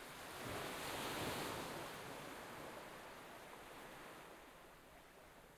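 A soft rushing noise, like wind or surf, swells to its loudest about a second in and then slowly fades away.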